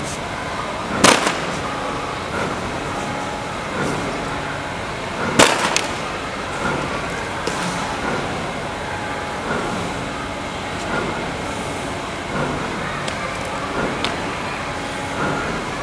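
Plastic-bodied two-wheel self-balancing scooter (hoverboard) knocking against concrete: two loud, sharp knocks about four seconds apart, with a few softer knocks, over a steady background noise.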